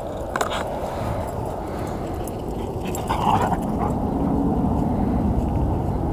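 Airbus A319's twin jet engines at takeoff thrust, heard from a distance as a low rumble that grows louder about three seconds in as the airliner lifts off and climbs. A short higher-pitched sound stands out briefly near the middle.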